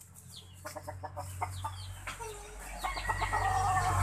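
Chickens clucking while they are fed, with short calls at first and longer drawn-out calls in the last second, over a low steady hum.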